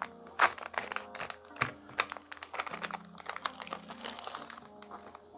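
Metallised anti-static bag crinkling in quick, irregular crackles as hands open it and slide a 3D-printer mainboard out, over quiet background music.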